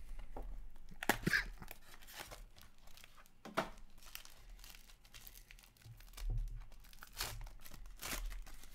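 Plastic wrap being slit and torn off a hockey card box, then a foil card pack handled and opened: crinkling, crackling and tearing packaging in a string of sharp rustles.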